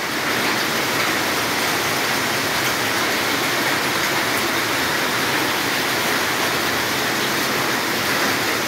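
Heavy hailstorm: hailstones pelting roofs and a wet terrace in a dense, steady hiss, really loud and without a break.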